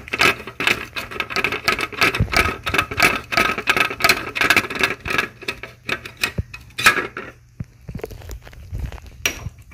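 Ratchet wrench clicking rapidly as a 10 mm bolt is backed out of the exhaust manifold heat shield, easing off about seven seconds in. A few light metal clinks follow near the end.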